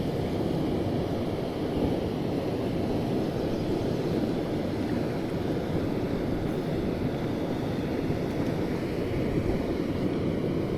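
Water from a spillway rushing steadily, a continuous even roar of flowing water.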